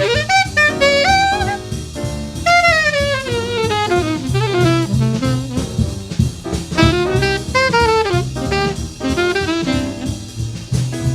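1947 bebop jazz recording: an alto saxophone plays fast, darting lines with several long descending runs over drums and bass.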